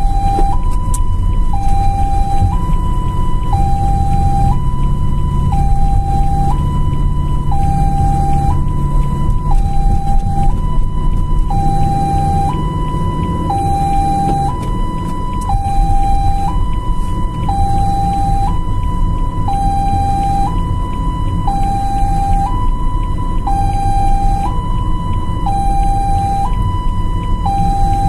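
Ambulance siren in two-tone hi-lo mode, switching between a high and a low note about once a second without a break, over steady vehicle engine and road noise.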